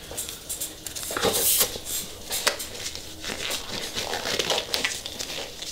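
Crinkling and rustling of a disposable green textured nitrile work glove being pulled from its box and handled, with light irregular clicks and scrapes.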